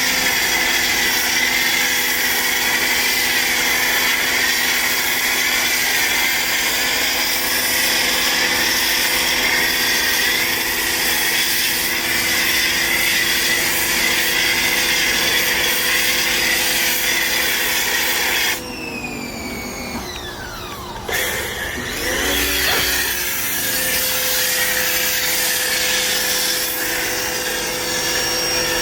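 Electric pressure washer's motor and pump running steadily under a loud hiss of spray. About two-thirds of the way through it cuts off and the motor winds down with a falling whine, then starts up again with a rising whine and runs on.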